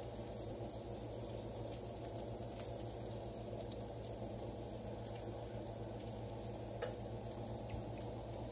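Faint, steady sizzling and hum from a hot electric oven with pizza and salmon baking inside, with a couple of faint ticks.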